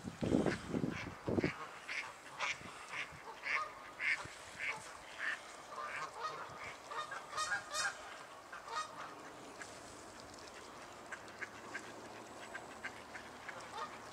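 Canada geese honking, a run of short calls about two a second that thins to fainter, sparser calls after about nine seconds. A few low thumps at the very start, footsteps in snow.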